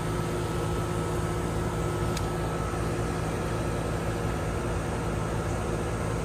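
Air-conditioning condensing unit of a 2006 R22 system running steadily: compressor hum under the condenser fan's even blowing, with one faint click about two seconds in. The system is running low on refrigerant charge.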